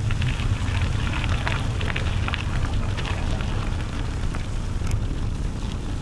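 Bicycle riding along a trail: tyres crunching and crackling irregularly over a gravelly path, over a steady low rumble of wind and road noise on the microphone.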